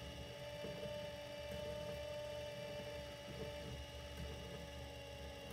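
Electric potter's wheel running with a steady, low hum.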